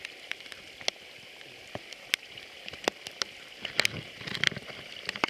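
Water dripping from a hand and sand scoop onto the lake surface: scattered, irregular sharp drips and small splashes.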